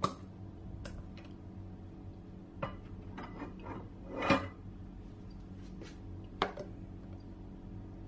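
Kitchenware being handled on a countertop: scattered clicks and knocks of bowls, lids and a plastic shaved-ice machine, with the loudest clatter about four seconds in. A low steady hum runs underneath.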